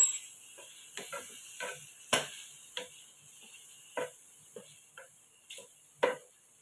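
Wooden spatula stirring pieces of sheep liver in a pan: irregular scrapes and knocks against the pan about once or twice a second, the loudest about two seconds in, over a faint sizzle of the cooking sauce.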